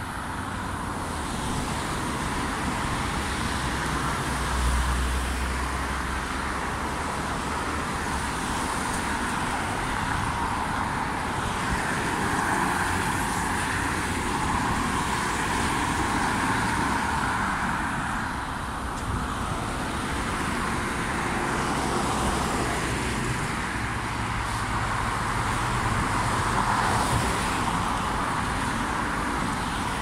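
Road traffic: cars passing one after another, a steady tyre-and-engine noise that swells and fades as each goes by, with a low rumble about five seconds in.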